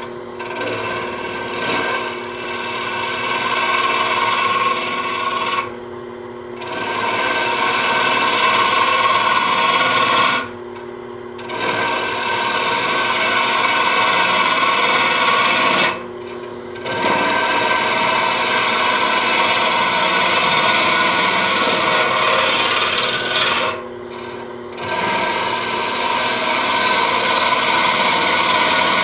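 Carbide cutter on a captured boring bar hollowing out the inside of a wood blank spinning on a lathe: a loud scraping cut in long passes, broken four times by a second or so when only the lathe's steady hum remains. The cutter is peeling off shavings rather than dust.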